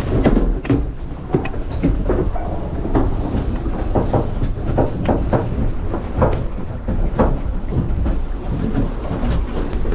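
Sailing yacht under way with wind rumbling on the microphone and a string of irregular knocks and rattles from the boat's fittings and sail handling.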